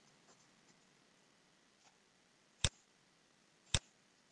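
Two sharp computer clicks about a second apart as the presentation slides are advanced, over a quiet room hiss.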